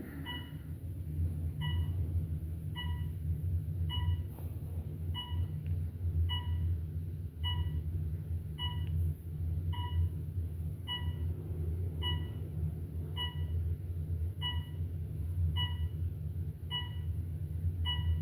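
Passenger elevator car descending with a steady low hum, while a short electronic beep sounds at a steady pace of a little under one per second, about once for each floor passed, stopping near the end.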